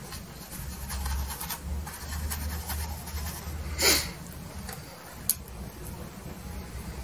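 Stiff-bristled brush rubbing oil paint onto canvas in soft scratchy strokes. A louder brief scrape comes about four seconds in, then a single sharp tick about a second later.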